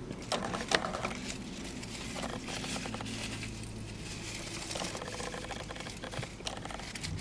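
A person chewing a bite of chopped cheese sandwich, with small irregular clicking and crackling mouth noises, a few sharper ones near the start, over a low steady hum.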